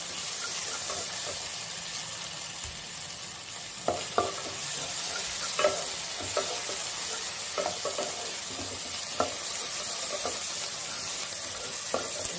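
Tomato, coriander and green chilli masala sizzling steadily in a nonstick pan while a wooden spatula stirs it, with short knocks and scrapes of the spatula against the pan every second or two.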